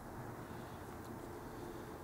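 Quiet, steady background hum of room tone, with a couple of faint small ticks from hands working silicone sealant around a rubber airbox boot.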